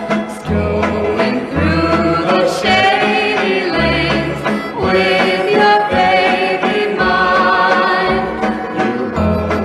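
Old-time popular song: a chorus of voices singing over a band with a steady bass line.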